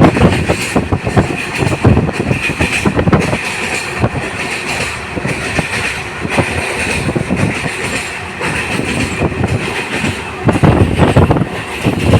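Train running on the railway bridge at Dehri on Son, its wheels rumbling and clattering over the rails, with heavier rumbling near the start and again near the end.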